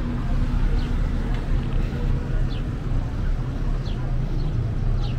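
Busy street ambience: a steady low rumble of traffic with indistinct voices. A short, falling high chirp repeats about every second and a half.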